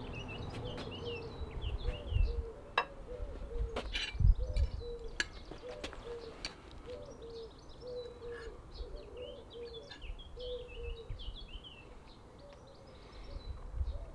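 Garden birdsong: a pigeon cooing over and over, with higher-pitched chirps from small birds. A few sharp clicks, a fork on a plate, in the first few seconds.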